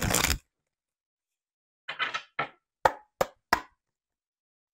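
A deck of oracle cards being handled: a short burst of shuffling, then five quick, sharp knocks as the cards are handled.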